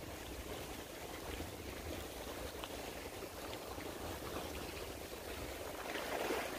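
Steady rushing outdoor noise with a low rumble and faint scattered ticks. About six seconds in comes a louder rustle as a person moves up close to the microphone.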